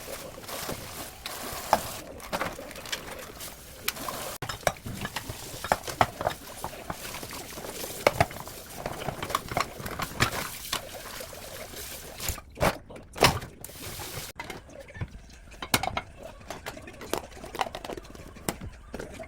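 Kitchen sounds: liquid pouring and being stirred, with utensils clicking and tapping against dishes. The sound changes abruptly a couple of times.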